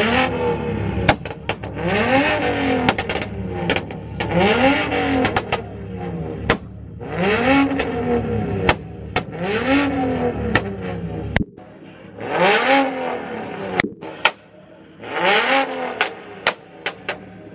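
A BMW's engine is revved hard about six times, each rev climbing and falling back. Sharp exhaust pops and cracks come between and after the revs.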